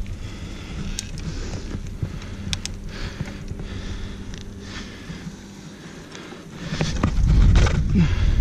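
Wind buffeting an action camera's microphone on a moving bicycle, over the hiss of tyres on asphalt, with a few sharp clicks. The wind rumble grows much louder about seven seconds in.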